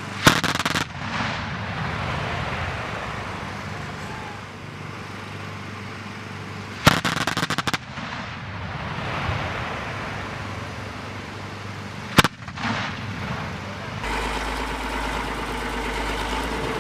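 Oerlikon GDF twin 35mm anti-aircraft cannon firing short bursts of rapid shots, about half a second in and again about seven seconds in, then a single shot near twelve seconds, each followed by a long rolling echo. Near the end a steady engine sound takes over.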